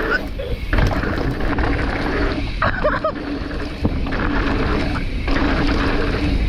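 Mountain bike rolling fast down a dirt trail: wind rushing over the microphone and tyre noise, with scattered clicks and knocks from the bike over rough ground.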